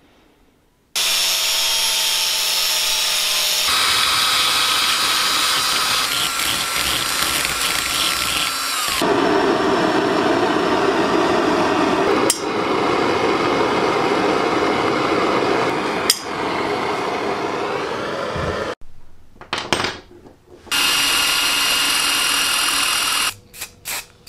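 A small power tool runs in several passes, its whine changing pitch. Then a gas torch hisses steadily as it heats a steel screw held in pliers. A run of short hissing bursts starts near the end.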